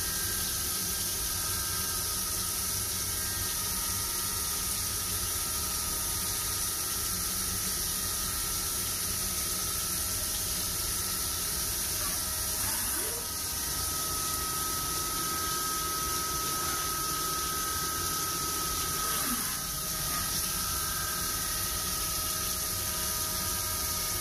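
Haas UMC-500SS five-axis CNC mill drilling small holes into a C101 copper slug with a 0.149-inch drill under flood coolant: a steady spray hiss with a steady spindle whine. The sound dips briefly twice, about halfway and about four-fifths of the way in, each time with a short gliding tone.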